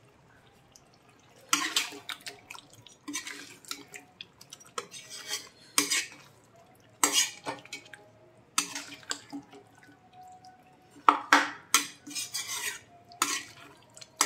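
Metal ladle scraping and knocking against a metal kadhai as chicken pieces are stirred into thick masala, in irregular strokes starting about a second and a half in.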